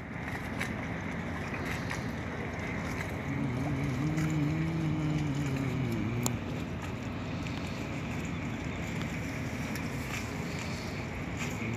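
Steady rumble and rush of a boat underway on open harbour water, with some wind on the microphone. A low wavering tone rises and falls for a few seconds in the middle.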